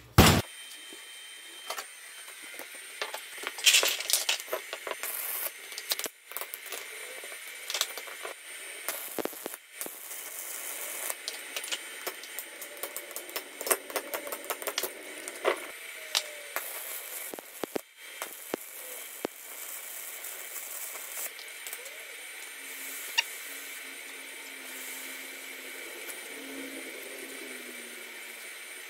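Stick (arc) welding: the arc crackling and sizzling steadily with sharp pops scattered through, starting with a loud snap as the arc strikes, while a steel bracket is welded onto a tube.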